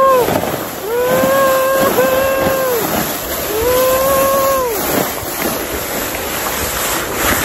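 A basin sled rushing and scraping down a snowy slope, with wind on the microphone, while a rider lets out long held shouts, four of them in the first five seconds.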